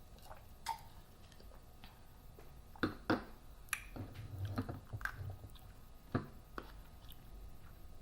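A person chewing food close to the microphone, with scattered wet mouth clicks and smacks.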